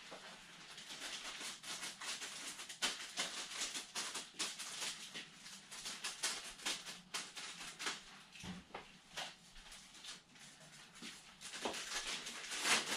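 Clear plastic wrapping crinkling and rustling as it is cut open and pulled off a foam model-airplane wing. Dense irregular crackles, thinning for a few seconds past the middle and picking up again near the end.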